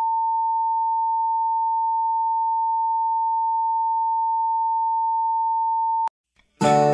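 Colour-bar test tone: a single steady, unbroken beep at one pitch that cuts off with a click about six seconds in. After a brief silence, music starts right at the end.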